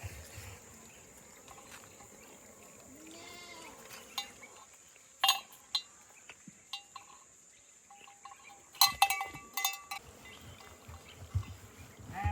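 A goat bleats faintly about three seconds in, and again louder right at the end. In between come scattered sharp clicks and knocks, loudest in a quick cluster about nine seconds in.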